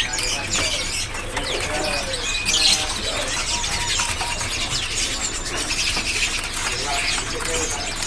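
Many caged songbirds chirping and twittering at once, short high calls overlapping throughout, over a steady low hum.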